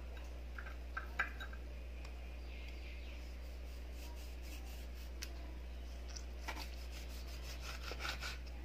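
Kitchen knife cutting small limes in half on a wooden cutting board: faint knocks of the blade meeting the board, a couple about a second in and a quick cluster near the end, over a steady low hum.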